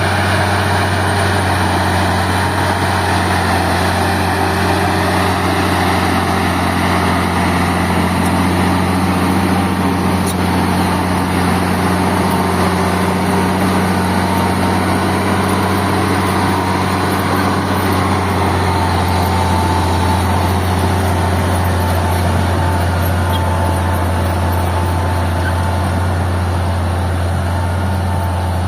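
Old Caterpillar D6 crawler dozer's diesel engine running steadily with a deep rumble.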